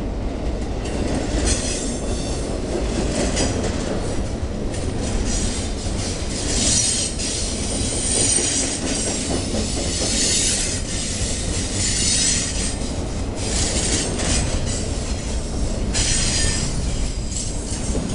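Double-stack intermodal freight cars rolling past close by: a steady rumble of steel wheels on rail, with high wheel squeal that swells and fades every second or two.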